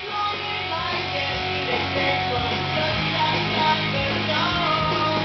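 Background music with guitar, steady held notes over a sustained bass line.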